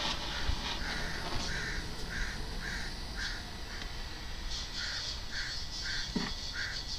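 A bird calling outdoors in a series of short, evenly spaced calls, about two a second, pausing briefly about four seconds in before starting again. A brief low thump about six seconds in.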